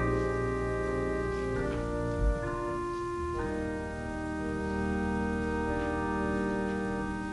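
Church organ playing offertory music: sustained chords that change every second or two. A brief low thump sounds about two seconds in.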